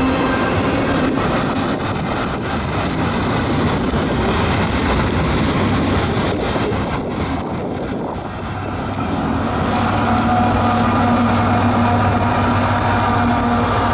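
Freight train passing close by: steady rolling noise of tank cars on the rails. In the second half a CN ET44AC distributed-power locomotive running mid-train comes past, adding a steady engine hum with several held tones over the wheel noise.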